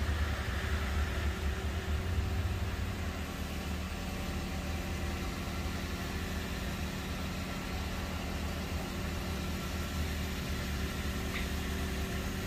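Steady low rumble of road traffic on a snowy street, with no sudden events.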